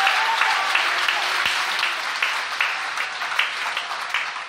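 Congregation clapping hands in praise, a crowd's applause that thins out toward the end.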